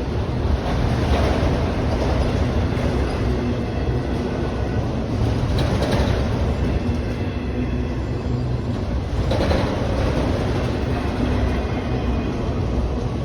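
Autorack freight train rolling past: a steady low rumble of steel wheels on rail, with a few brief louder swells.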